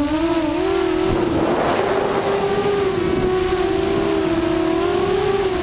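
ZMR250 V2 mini quadcopter's brushless motors and propellers whining in flight, the pitch wavering as the throttle changes, heard from the camera carried on the quad. About a second in, a rushing noise joins for about a second as the pitch steps up slightly.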